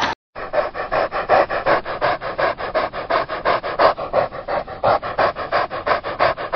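Dog panting rapidly and steadily close to the microphone, about six quick breaths a second.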